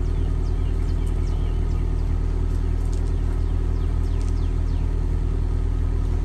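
1990 Mazda Miata's 1.6-litre four-cylinder engine running at a steady speed during a Sea Foam treatment, burning off carbon buildup.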